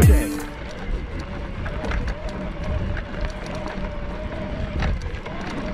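Electric mountain bike's mid-drive motor whining with a steady tone under load on a climb, fading near the end, over tyre noise on a dirt trail and wind on the microphone.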